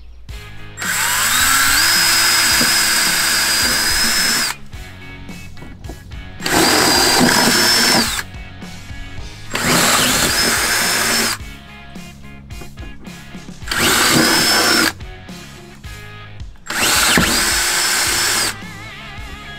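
Cordless drill boring into a metal floor panel in five bursts, its motor whine rising as it spins up at the start of each one. Background music plays in the gaps between bursts.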